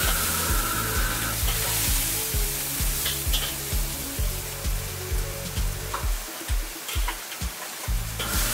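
Food sizzling in a hot carbon-steel wok over a high-flame gas burner, while a metal ladle stirs it and clicks against the wok a few times. Background music with a steady beat runs underneath.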